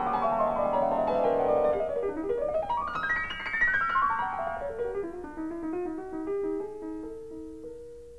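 Piano music: quick runs of notes sweep down, then up, then down again, slowing to a few single held notes and growing quieter near the end.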